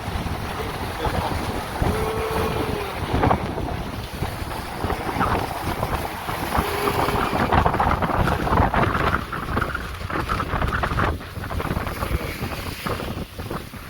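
Wind buffeting the microphone: a steady, gusty rumble, with two short faint tones, one about two seconds in and another near seven seconds.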